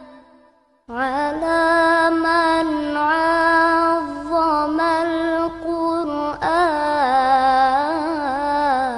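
Background music: a solo voice sings a long-held, ornamented melody that wavers up and down. It comes in after a short break about a second in.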